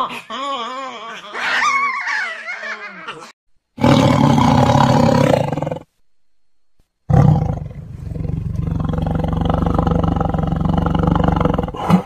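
Ring-tailed lemurs calling with wavering, rising and falling calls for the first three seconds. Then a tiger roars: one loud roar about four seconds in, and after a short silence a long, low roar that carries on to the end.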